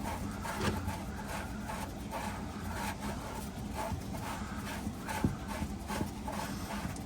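Old engine oil pouring steadily from the open sump drain of a 1948 Ford V8 Pilot into a catch bucket, with a couple of light knocks.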